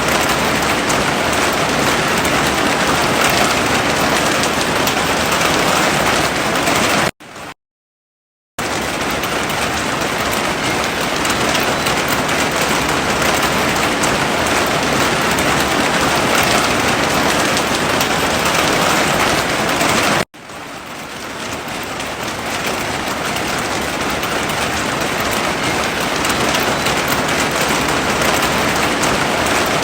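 Heavy rain falling as a steady, loud hiss. It drops out to silence for a second or so about seven seconds in, and cuts out again about two-thirds of the way through before fading back in.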